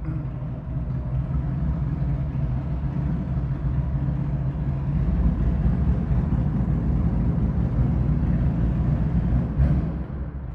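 Honda Valkyrie's flat-six engine with Cobra six-into-six straight pipes idling steadily just after a cold start without choke. It gets somewhat louder through the middle, and a sharp click near the end is followed by a slightly lower level.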